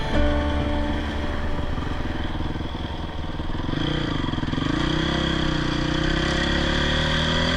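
Motorcycle engine running under way, its pitch dipping and climbing again about halfway through before holding steady.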